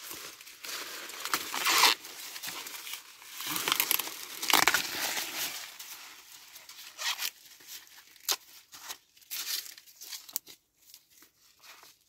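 Dry maize husks and leaves being torn and rustled by hand as ears of corn are husked, with the loudest tearing about two and five seconds in and sparser crackles later.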